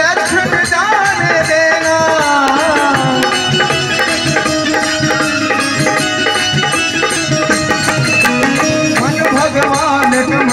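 Live Bhojpuri devotional song: a keyboard melody over a steady hand-drum beat, with a man's singing voice at times.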